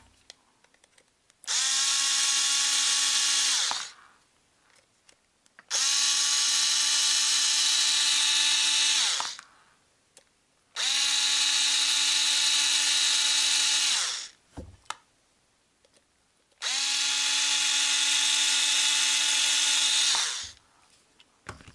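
Small electric screwdriver running in four separate runs of two to four seconds, a steady whine that winds down as each run stops, backing out the head-protector screws of a Traxxas TRX 3.3 nitro engine.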